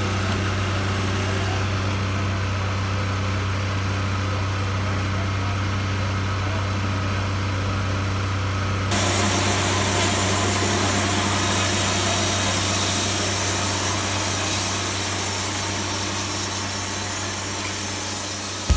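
Sawmill engine running steadily with a low hum; about halfway a loud steady hiss comes in on top, the sound of sawing.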